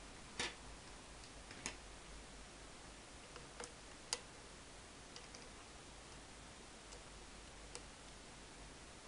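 A handful of faint, sharp clicks at uneven intervals, five or six in all, over a steady low hiss and hum.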